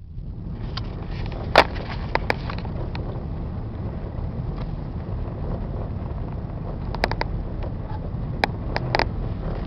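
A steady low rumble with a few sharp knocks or clicks over it: a loud one about one and a half seconds in, and several more in the last few seconds.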